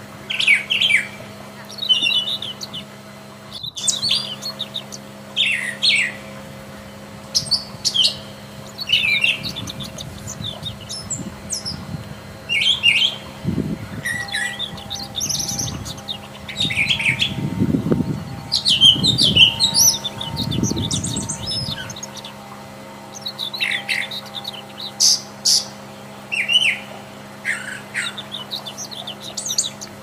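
Brown thrasher singing: a long run of short, varied phrases, each followed by a brief pause. A low rumble runs underneath through the middle.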